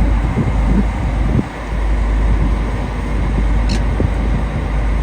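Fishing boat's engine running steadily underway, a loud continuous low rumble with a rushing noise over it.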